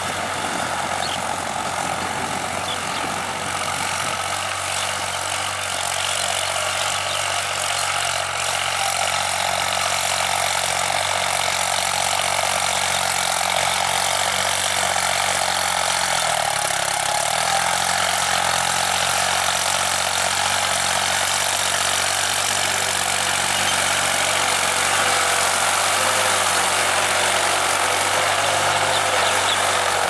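New Holland TT55 tractor's diesel engine running steadily while pulling a tined cultivator through the soil, its note dipping briefly in pitch about halfway through.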